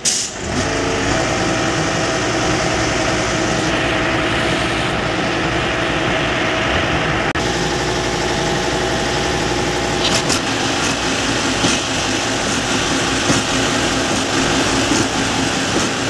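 Diesel engine of a ready-mix concrete mixer truck running steadily, a loud even drone with a low hum. A few light clicks and knocks come in the second half.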